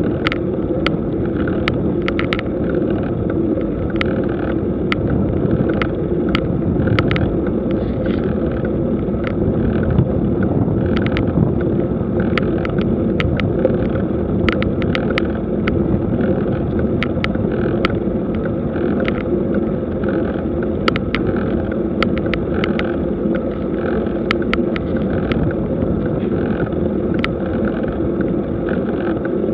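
A bicycle rolling up a paved road: a steady, muffled rumble of tyres and road with some wind on the microphone, broken by frequent irregular sharp clicks.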